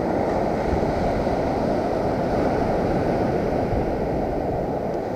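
Ocean surf breaking and washing up the beach, a steady rushing noise, with wind blowing on the microphone.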